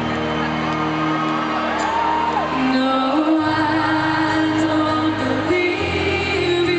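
Live acoustic pop song: a female lead vocal over two acoustic guitars and an electric bass, amplified through a concert sound system.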